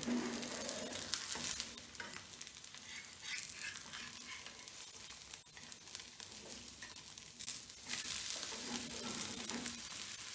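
A rice-flour and microgreen roti frying in oil on a hot tawa, sizzling steadily, with a metal spatula scraping under it and lifting it now and then.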